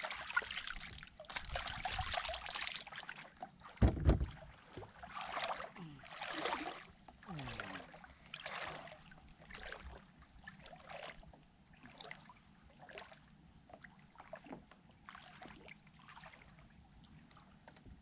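Water splashing and sloshing as a person wades through shallow water, a splash every second or so, loudest at first and fading as he moves away. A low thump about four seconds in.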